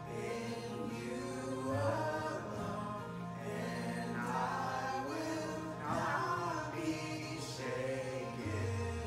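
Recorded Christian worship song: voices singing a melody over a backing track with steady bass notes.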